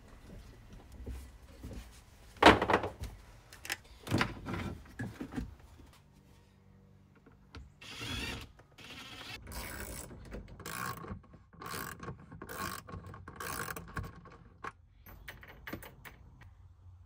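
Knocks and clunks of cable and parts being handled, the loudest a sharp knock about two and a half seconds in. Then a DeWalt cordless drill run in a string of short bursts.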